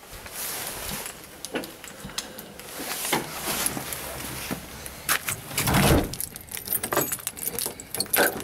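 Handling noise from a handheld camera being carried: scattered clicks, rattles and rustling, with a heavier thump about six seconds in.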